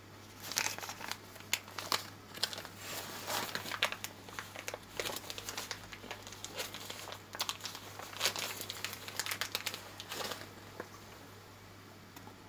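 Thin plastic packaging bag crinkling and rustling in gloved hands as it is opened to take out a new oil burner nozzle. The crinkling stops about ten and a half seconds in.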